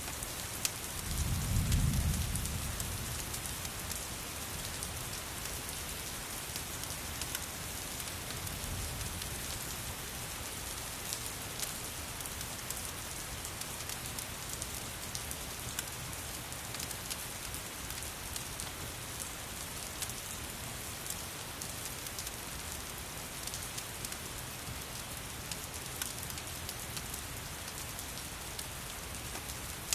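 Steady rain falling on a surface, with scattered sharp clicks throughout and a low rumble swelling about two seconds in.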